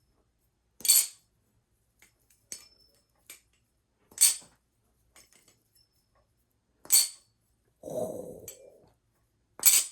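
Baliplus Orca V2 clone balisong being flipped for a sound test: four sharp metallic clacks of the handles closing against the blade, spaced about three seconds apart, with faint light rattles in between. A short muffled sound comes shortly before the last clack.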